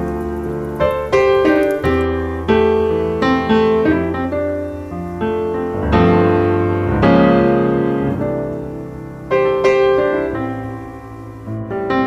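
Solo piano music, notes and chords struck and left to ring out one after another.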